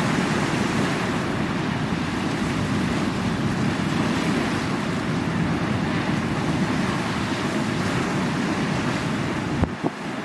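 Sea waves washing on the shore in a steady dense rush, with wind buffeting the microphone. A brief click and drop in level comes near the end.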